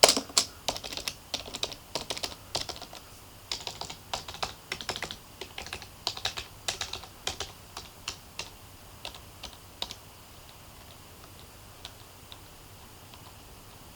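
Typing on a Logitech MK250 keyboard: irregular key clicks, several a second, that stop about ten seconds in, leaving only a few faint taps.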